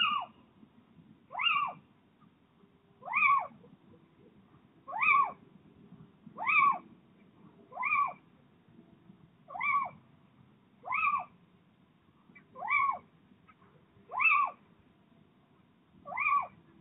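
Little owl calling: a short note that rises then falls in pitch, repeated about eleven times at a steady pace of roughly one call every one and a half seconds.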